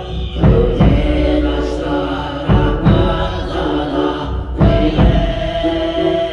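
Tuvan throat singing: a low droning voice with a distinct overtone melody stepping above it. It is accompanied by a bowed fiddle and a frame drum struck in pairs of beats about every two seconds.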